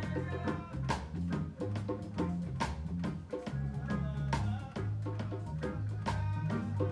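Small live band rehearsing an instrumental: a drum kit keeping a steady beat of regular hits, an electric guitar playing over it, and a deep bass line that changes note every half second or so.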